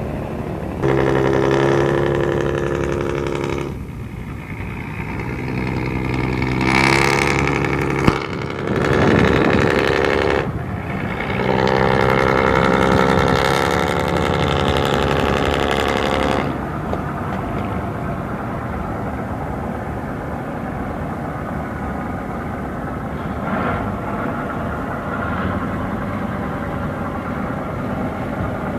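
Motor engines running at a steady pitch, louder in several stretches over the first half, with a short rushing noise about nine seconds in; a quieter steady engine hum carries on after.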